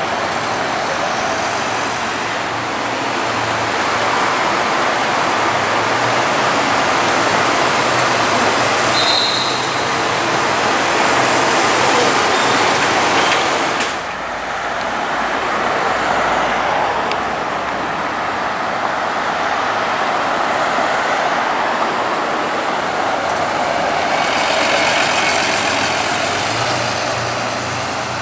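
Mercedes-Benz Citaro city buses driving past, their engines humming steadily under tyre and road noise. The sound changes abruptly about halfway through to general road traffic with another Citaro moving off.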